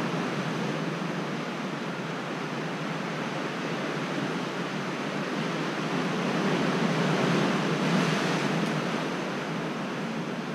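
Sea surf washing against a rocky shore: a steady rushing noise that swells for a couple of seconds in the second half.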